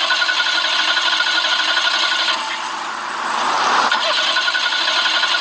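Car engine started and running at idle with an even beat, growing louder for a moment about three and a half seconds in. It runs normally, with no fault to be heard.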